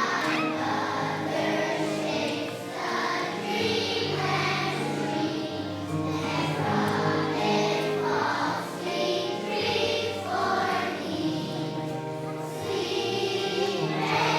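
A choir of young children singing a song over instrumental accompaniment.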